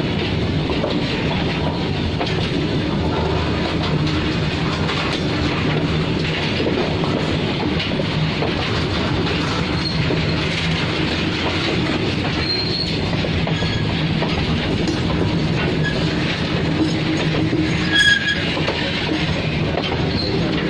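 Covered goods wagons of a freight train rolling past close by: a steady rumble of steel wheels on the rail. Brief high-pitched wheel squeals come through a few times, the loudest about eighteen seconds in.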